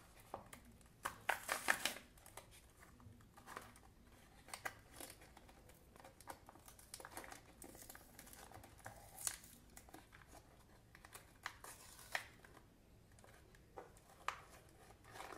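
Foil-lined plastic snack wrapper being torn open and peeled back by hand: irregular crinkling and crackling, densest about a second in, then scattered crackles.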